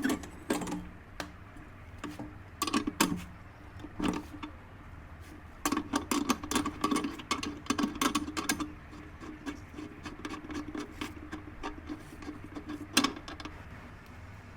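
Clusters of sharp clicks and knocks from hand work on a motorcycle shock absorber, over a faint steady hum.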